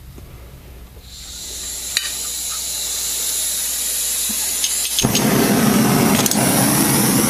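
Handheld gas torch: a hiss of gas builds from about a second in, then a few light clicks, and about five seconds in the flame catches and burns with a louder, fuller rushing sound.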